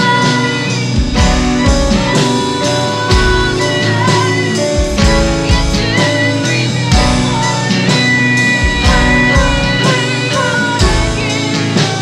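Live band music: female voices singing over keyboard, guitar, violin and a drum kit keeping a steady beat.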